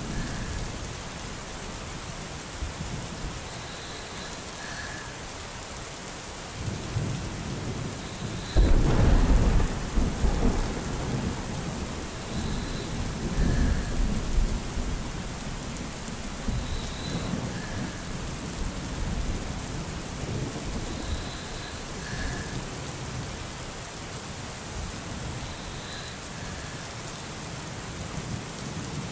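Steady rain with one long roll of thunder. The thunder builds about seven seconds in, is loudest a couple of seconds later, and dies away over the next several seconds.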